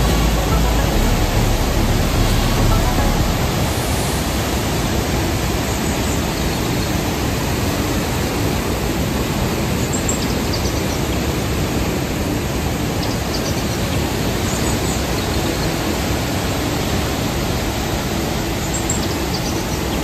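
Athabasca Falls, a large glacial-river waterfall, plunging into a rock gorge: a loud, steady rushing of water, with a deeper rumble in the first few seconds.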